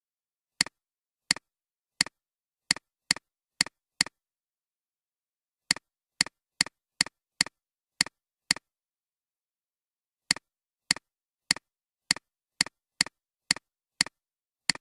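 Computer mouse clicks, each a sharp press followed at once by a softer release, in three runs of about two clicks a second with short pauses between, over dead silence.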